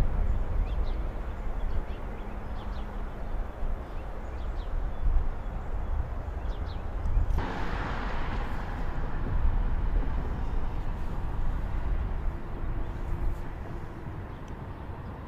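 Outdoor ambience: a steady low rumble with a few faint, short bird chirps in the first half; the background noise shifts about seven seconds in.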